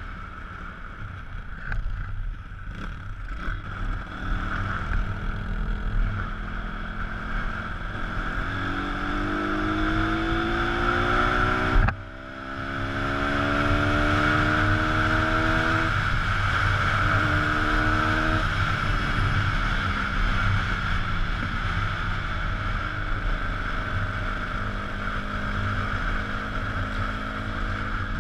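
Pit bike's single-cylinder engine accelerating hard. Its pitch rises through the gears with a sharp drop at a gear change about twelve seconds in, then smaller shifts follow before it settles to a steady cruise. Wind noise runs underneath.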